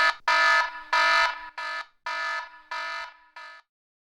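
Alarm clock going off: a harsh buzzing beep repeated about twice a second, the last few beeps softer and shorter, stopping about three and a half seconds in.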